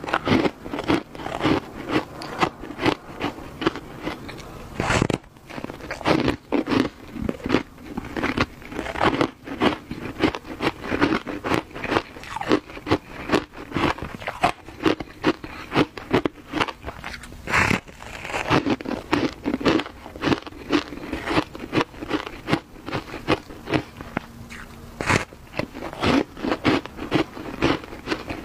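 Compressed shaved-ice blocks dusted with matcha powder being bitten and chewed close to the microphone: a steady run of crunches, several a second, with a few sharper, louder bites.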